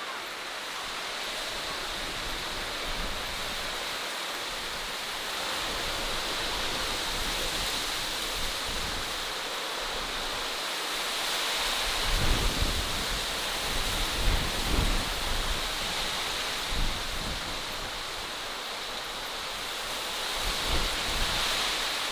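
Steady outdoor nature ambience: an even rushing hiss, with low buffeting gusts of wind on the microphone from about halfway through.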